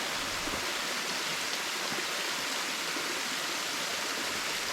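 Slippery Rock Creek flowing, a steady rush of water.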